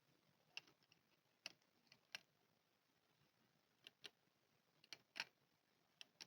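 Small hard plastic toy pieces being handled, making about nine light, sharp clicks and taps at irregular intervals against a very quiet background.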